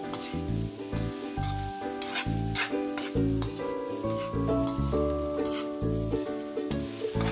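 Spatula scraping and turning egg fried rice in a wok, with repeated strokes about twice a second over a sizzling hiss, and background music playing underneath.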